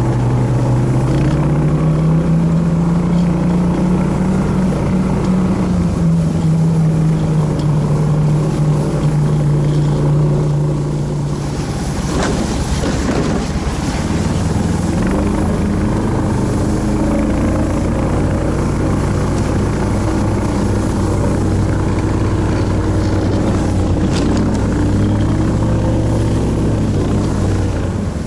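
Vehicle engine running steadily under way, its pitch rising in the first couple of seconds and easing back a few seconds later. About halfway through the engine note breaks up and dips for a few seconds, then it settles lower and steady again.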